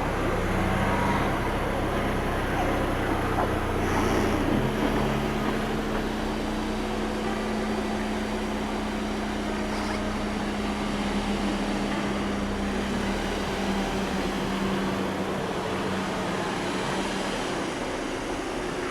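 SEAT Leon Cupra 290's turbocharged 2.0-litre inline-four running under way, mixed with tyre and road noise. Its drone climbs a little in pitch over the first few seconds, then holds steady.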